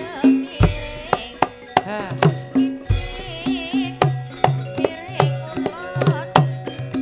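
Javanese gamelan music driven by a quick, steady pattern of kendang hand-drum strokes, deep bending thuds mixed with sharp slaps. Held metallic tones and a wavering high melody line run over the drumming.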